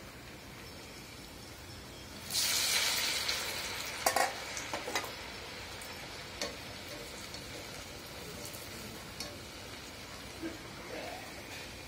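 Urad dal vadas deep-frying in hot oil: a steady sizzle that surges sharply about two seconds in, then settles. A wire spider strainer clinks against the pan a few times.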